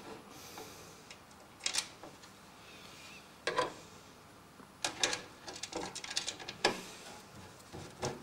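Irregular light clicks and knocks from hands working on PC parts and screws inside a computer case, a few sharper taps among quieter fiddling.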